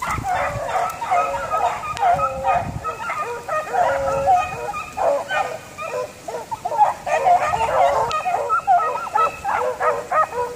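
A pack of rabbit-hunting dogs baying and yelping without a break, several voices overlapping, as they run a rabbit's trail.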